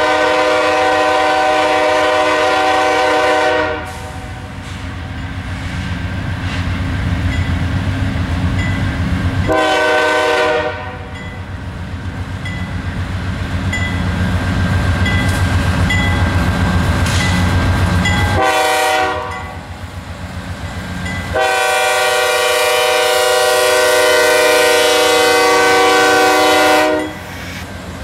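A CSX diesel freight locomotive's multi-chime air horn sounds four blasts: a long one, two short ones and a final long one. Between the blasts the locomotive's diesel engine rumble grows louder as the train closes in.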